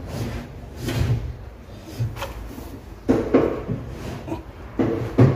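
Steel ball-bearing drawer slide being worked by hand while a drawer is fitted: metal rails sliding and clicking in several short bursts, the loudest near the end.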